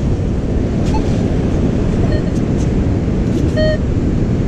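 Steady wind rumble on the microphone with surf behind it. A Minelab Manticore metal detector gives a short pitched beep about three and a half seconds in, with a fainter blip around two seconds.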